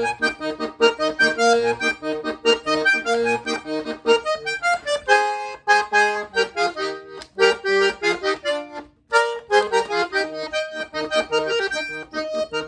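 Hohner Rey Vallenato (Corona III) three-row button accordion with harmonized reeds, playing a rhythmic vallenato passage in E-flat: melody and chords on the right hand over short bass-button notes, with a brief break just before 9 seconds.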